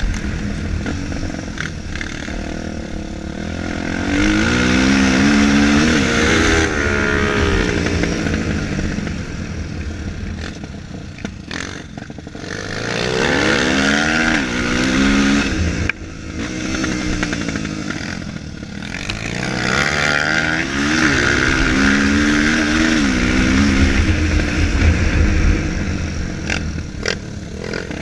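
Single-cylinder four-stroke dirt bike engine revving hard, its pitch climbing and dropping again and again as the rider accelerates and shifts around the track. A heavy low rumble runs under it.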